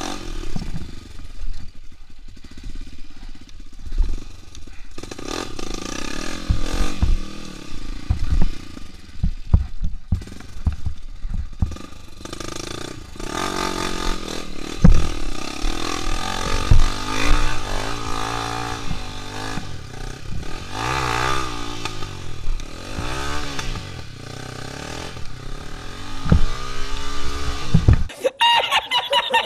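Small single-cylinder trail motorcycle engine revving up and down repeatedly while being ridden over rough ground, with frequent knocks and clatter from the bike over bumps.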